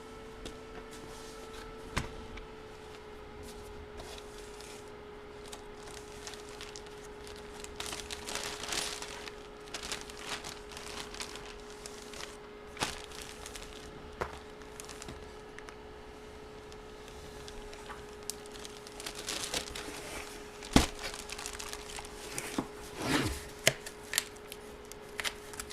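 Plastic packaging crinkling in intermittent bouts as it is handled, with scattered taps and clicks, one sharp click about two-thirds of the way through, over a faint steady hum.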